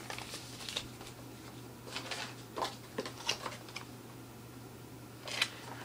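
A paper manual and small cardboard box being handled: a few brief rustles and scrapes, the sharpest about five and a half seconds in, over a steady low hum.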